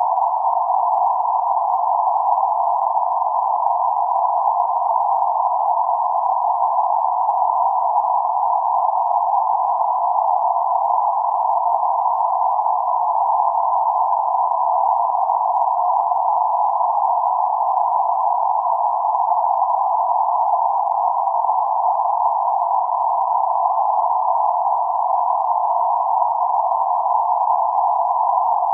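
Steady band-limited noise centred around 848 Hz, a narrow hiss confined to roughly 600 Hz to 1.3 kHz with nothing above or below, unchanging in level throughout.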